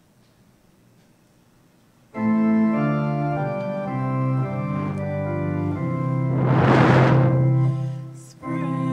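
Organ starts playing sustained chords about two seconds in, after near silence. A brief hiss swells and fades over the chords around the middle, and the organ breaks off for a moment just before the end.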